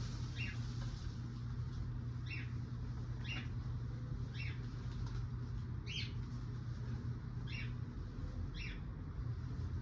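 A bird chirping repeatedly, short high calls about once a second, over a steady low hum.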